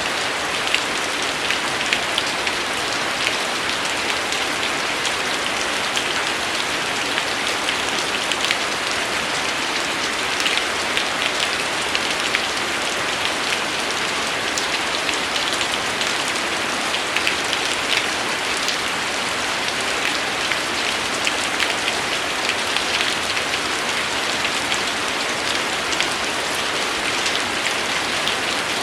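Steady rain falling on a surface, a dense even hiss with many small sharp drop ticks.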